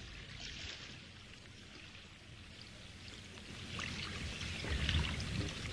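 Lake water splashing and lapping, growing louder toward the end with a low rumble.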